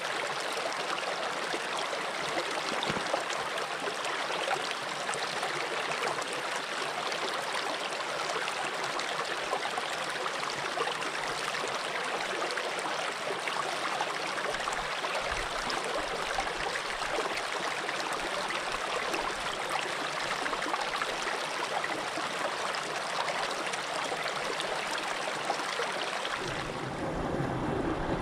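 Small, rocky mountain stream running and babbling over stones, a steady rush of water. About a second before the end the sound turns lower and deeper as a new stretch of water comes in.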